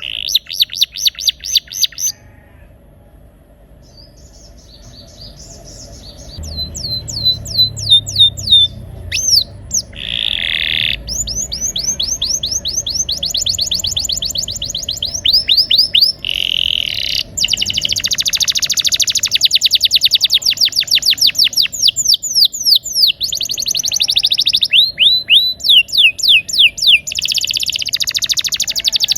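Domestic canary singing: long rolling trills of fast repeated notes, changing from one run to the next. The song drops away to a few softer notes about two seconds in, then comes back loud and keeps rolling.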